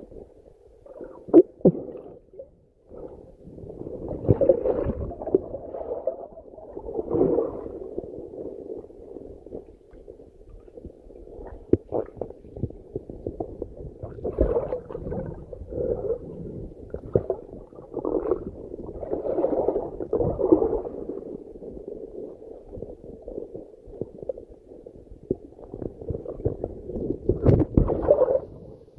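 Underwater water noise heard through a camera's waterproof housing: muffled, irregular gurgling and bubbling surges every few seconds, with a few sharp knocks.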